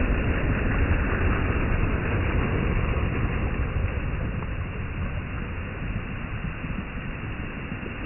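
Black Sea surf washing up a pebble beach: a steady rush of foaming water over the shingle, slowly growing quieter as the wash spreads out and drains back.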